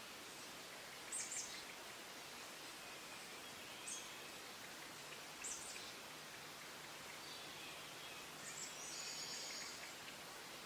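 Birds chirping faintly over a steady background hiss: short high calls about a second in, near four seconds and near five and a half seconds, then a longer trilling call near nine seconds.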